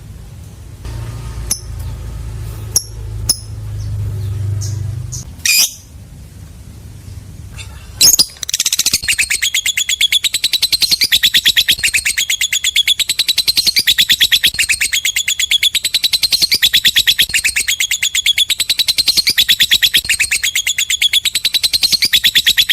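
Lovebird giving its long 'ngekek' song: a very rapid, even chattering trill that starts about eight seconds in and runs for about fourteen seconds. Before it come a few short sharp chirps over a low hum.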